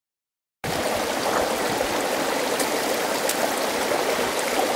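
Shallow rocky stream running over stones, a steady rushing of water that starts suddenly about half a second in.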